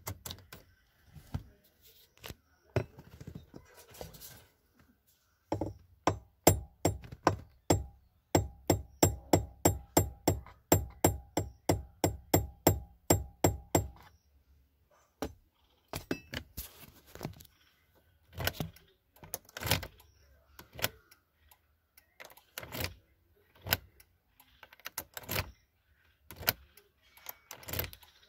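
Knocks and clicks of hands and tools working at plastic trim around a car's steering column. From about five seconds in to about halfway there is a run of regular clicks, about two a second, over a steady tone.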